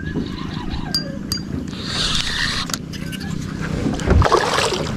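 A boat motor hums steadily at a low pitch while a spinning reel is worked. A few sharp clicks sound, and a louder rushing burst comes about four seconds in.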